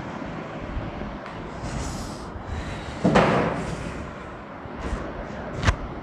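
A whiteboard being rubbed with a duster, then a single loud thump about three seconds in and a sharp click near the end.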